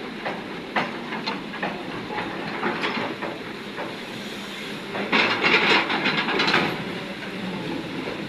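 Excavator loading wet stone into a tipper truck: the diesel engine runs steadily under scattered knocks of stone. About five seconds in a louder clattering rush lasts roughly a second and a half, as a load of stone drops.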